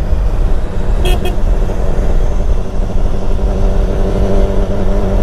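Motorcycle riding at speed, wind noise on the microphone over the engine, with a horn beeping twice briefly about a second in. From about two seconds in the engine's steady tone comes through more clearly.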